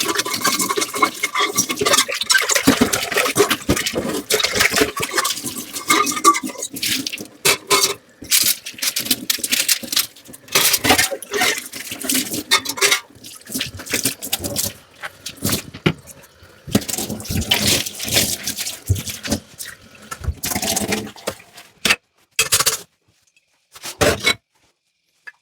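Dishes being washed by hand under a running tap: water running and splashing, with irregular clinks and knocks of dishes and utensils. It breaks off in brief silent gaps near the end.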